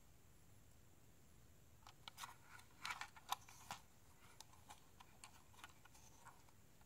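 Faint handling noise from a solar charge controller being turned over in the hands: scattered light clicks and rubs of its plastic case and finned aluminium back plate, starting about two seconds in.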